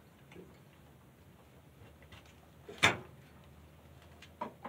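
Hand handling noise at a workshop machine: one sharp knock about three seconds in and a couple of faint clicks near the end, otherwise quiet.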